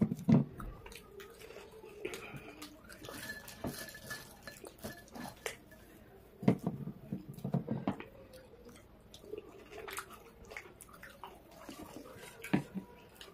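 Close-up eating sounds: chewing, lip smacks and wet mouth clicks from people eating soft bread rolls, curry and fries by hand. There are scattered sharp clicks throughout and a louder run of gulps and smacks about halfway through, as cola is drunk from a glass.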